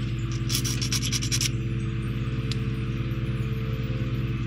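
A flat file scraping in quick strokes for about a second along the edge of a plastic model-kit part, trimming off moulding flash. A steady low mechanical hum runs underneath throughout and is the loudest sound.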